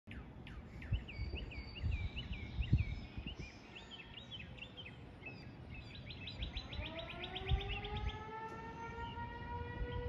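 Birds chirping and trilling, with a few low thumps, until about six seconds in, when an Eclipse 8 civil defense siren starts winding up. Its pitch rises and settles into a steady tone for the noon blast.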